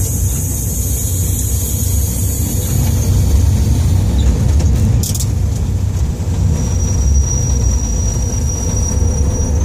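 Diesel engine of a DR class 231 locomotive running with a steady low drone, heard from inside the cab as the locomotive rolls slowly over the tracks. There is a single click about five seconds in, and a thin, high steady whine from about two-thirds of the way through.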